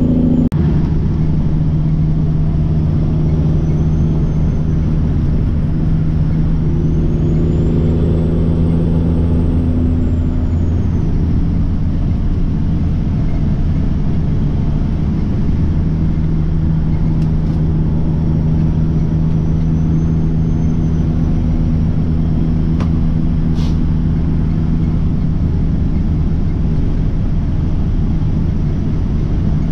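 Peterbilt truck's diesel engine running steadily under way with road noise, its engine note shifting around the middle. A faint high whine rises and falls a few times, and a few sharp clicks come in the second half.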